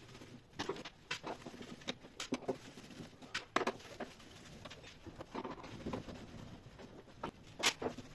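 Irregular light clicks, taps and small knocks of hands and tools working on the casing of a heat-pump tumble dryer as a large cover is taken off, with one sharper click near the end.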